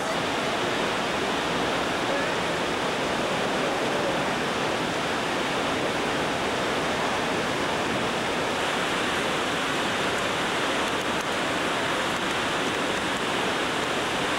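Steady rushing noise of a waterfall's falling water, even and unbroken.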